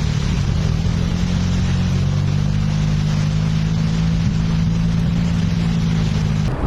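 An engine running at a steady speed, with a constant rushing hiss of floodwater over it; the clip cuts off sharply near the end.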